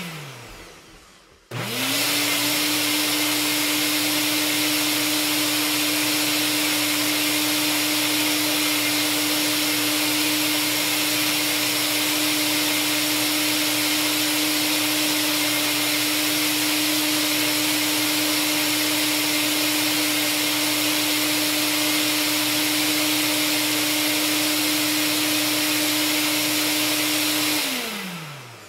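Nutribullet Combo blender's motor running its automatic extract cycle with the 32-ounce cup and extractor blade, blending a smoothie: it winds down as the sound begins, stops for about a second, then spins back up to a steady, extremely loud whine that holds for about 26 seconds before winding down again near the end.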